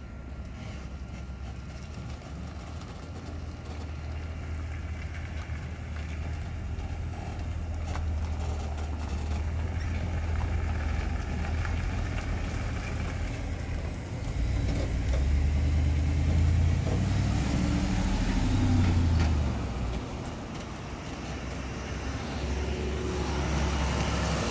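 Wrecker tow truck's engine running as it drives past, growing louder. Its pitch rises and falls a few times past the middle as the driver works the throttle. Near the end another car's engine comes closer.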